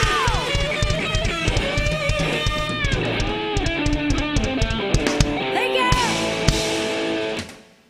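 Live rock band playing, led by electric guitar over a drum kit. The music fades out about seven and a half seconds in.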